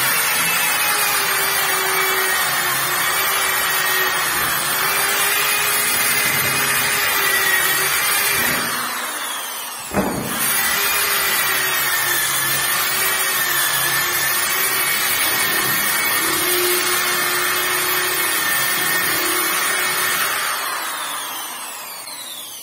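Electric round-pad sander running steadily against a painted wooden door, sanding it back for repainting. Its sound dips briefly about nine seconds in and picks up again with a sharp knock. Near the end it is switched off and spins down, its pitch falling.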